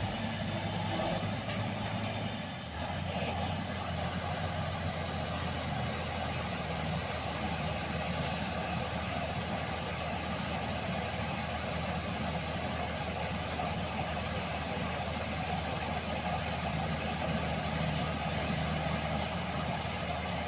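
Rice combine harvester's engine running steadily. About three seconds in there is a brief dip in loudness and a shift in its low drone.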